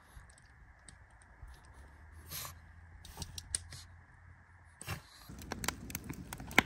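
Firewood being set on a campfire: scattered clicks and light knocks of wood, with a thump about five seconds in and quicker clicks after it.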